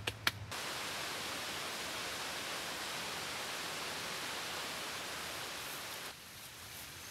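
A sharp click, then a steady even hiss that starts about half a second in and drops away about a second before the end.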